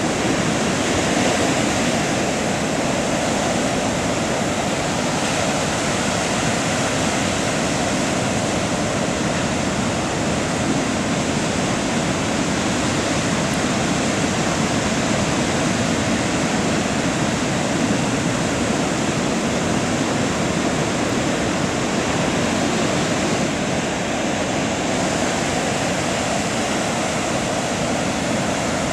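Heavy surf breaking: a steady, even rush of waves and churning water.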